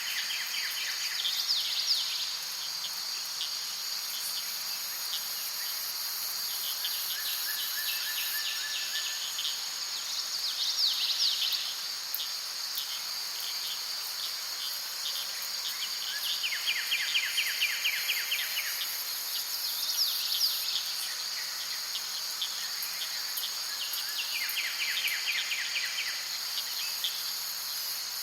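Forest ambience: a steady high-pitched insect chorus, with short rapid bird trills breaking in every few seconds.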